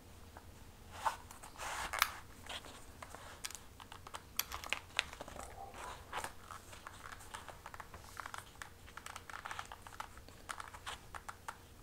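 A leather strap being worked behind a metal plaque belt and pulled through to hang a sword scabbard: faint, irregular rustling, creaking and small clicks.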